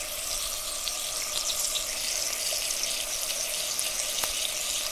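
A steady hissing noise with faint scattered crackles.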